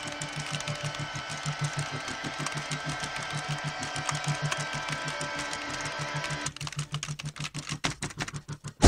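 Fast computer keyboard typing, a dense clatter of keystrokes over a quick, even low pulse and a steady electronic hum. About six and a half seconds in, the hum and pulse stop and only a few scattered keystrokes remain.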